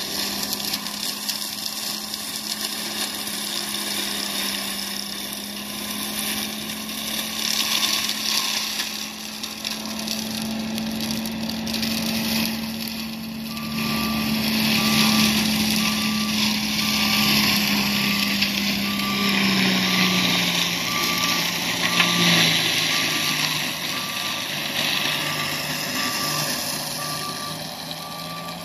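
John Deere 333G compact track loader's diesel engine and MH60C mulching head running steadily while mulching brush, the pitch dipping briefly a few times about two-thirds of the way through. From about halfway, the loader's backup alarm beeps about once a second.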